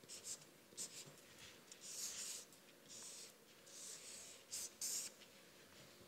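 Felt-tip marker drawing on a large sheet of paper: a faint run of short strokes, with a couple of longer drawn-out ones about two and four seconds in.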